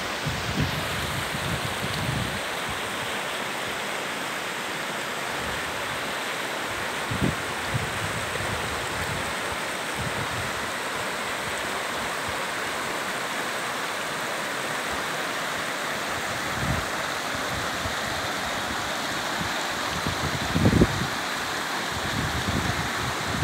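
Shallow mountain stream rippling over stones: a steady rush of running water, with a few brief low thumps on the microphone, the loudest near the end.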